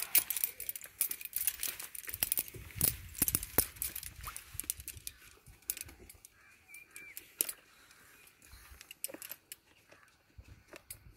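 Climbing gear being handled: rope and metal carabiners clinking and rustling at a belay device as the belayer pays out rope. A dense run of sharp clicks over the first few seconds, then only scattered clicks.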